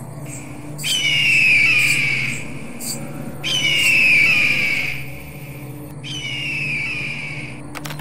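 Bird-of-prey scream, heard three times: each is a long, high, slightly falling screech, about two seconds apart, over a low steady hum.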